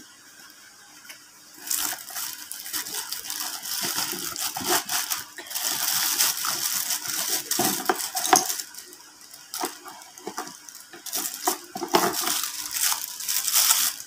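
Crinkling plastic wrapping and rustling cardboard as a packed box is unpacked by hand. The crackling comes in two long stretches, from about two seconds in until about nine, then again from about eleven and a half seconds, with a quieter pause between them.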